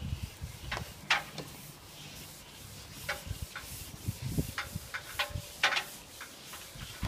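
Brush head of a water-fed cleaning pole scraping and knocking over a conservatory roof in irregular strokes, with short scrubbing sounds and clicks.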